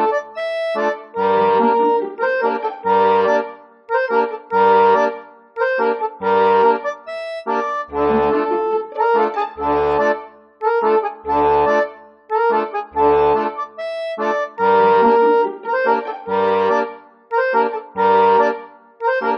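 Background music: a lively tune over a steady, evenly repeating bass beat.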